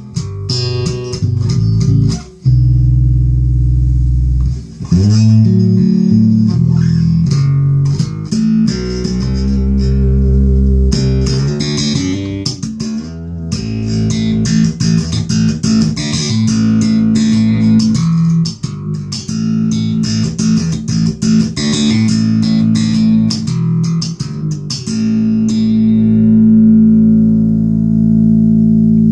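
Alembic Series 2 long-scale electric bass played solo, a steady run of plucked notes with sharp, clicky attacks over a deep sustained low end.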